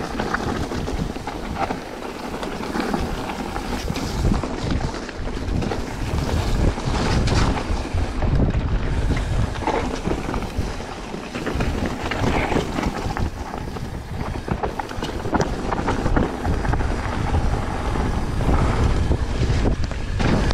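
Wind buffeting the microphone of a camera carried by a mountain biker riding a trail, a loud, gusting rush, with scattered knocks and rattles.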